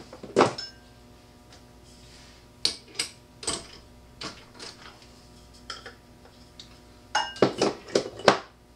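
Chuck key clinking and clicking in a metal lathe's three-jaw chuck as the jaws are loosened to free a wooden pipe: a string of separate sharp metal knocks, with a quicker run of them near the end.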